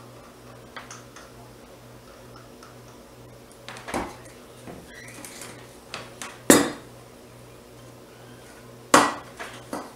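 Soap-making utensils knocking and clinking against a ceramic mixing bowl and a small dish as a stick blender and spatula are handled: a few separate knocks, the loudest about six and a half seconds in, over a faint steady low hum.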